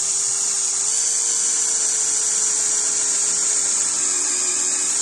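Electric drill running at a steady speed as its twist bit cuts through a metal plate, the motor's whine mixed with a high, steady cutting screech.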